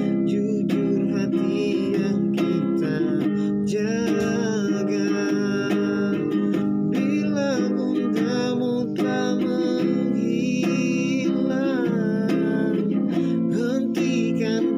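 Classical guitar strummed and fingerpicked, accompanying a man's voice singing a slow melody.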